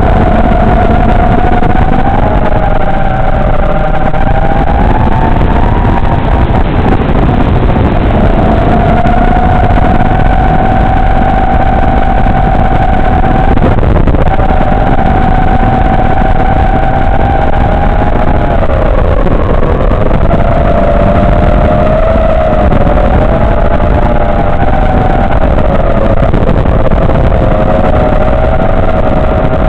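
FPV quadcopter's motors and propellers buzzing loudly, their whine wavering up and down in pitch with the throttle, over a steady rush of air noise.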